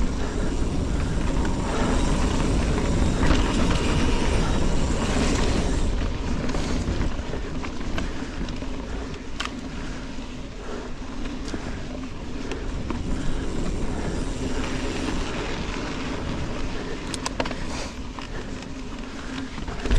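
Mountain bike ridden along dirt forest singletrack: knobby tyres rolling over the trail, with chain and frame rattling and wind on the action camera's microphone. Louder over the first few seconds, with a few sharp clicks later on.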